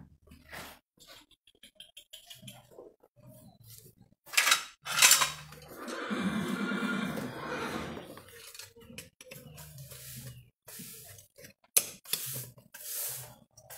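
Steel horseshoe and a farrier's hand tools clinking and knocking, with the sharpest metal knocks about four to five seconds in and again near the end, and a rough two-second stretch of noise in the middle.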